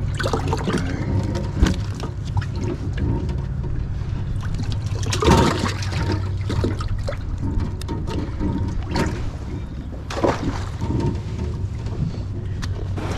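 Water splashing and trickling in a bass boat's livewell as bass are lifted out and dropped back in on plastic cull clips, with scattered clicks from the clips. A steady low hum runs underneath.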